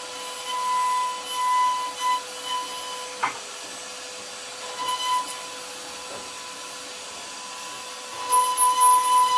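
CNC router spindle giving a steady high whine while its small bit cuts into a wooden panel, with a hiss of cutting. The whine drops away for a few seconds midway and returns louder near the end.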